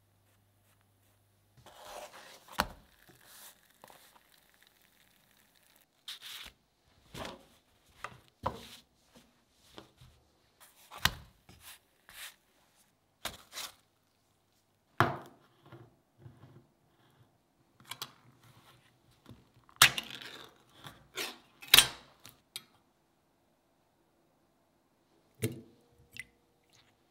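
Close-up kitchen handling sounds: a scattered run of brief, separate taps and scrapes as flatbreads are handled in a frying pan and on a plate, then a fork knocking against a tin can near the end.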